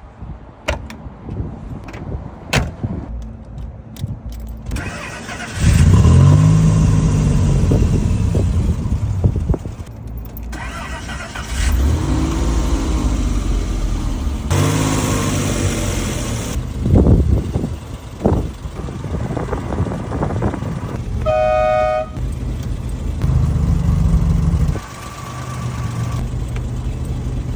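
Citroën SM Injection's Maserati V6 engine: a few sharp clicks, then it starts about five seconds in and is revved up and down several times. The car horn honks briefly about two-thirds of the way through, and the engine is blipped once more before settling to a steady idle.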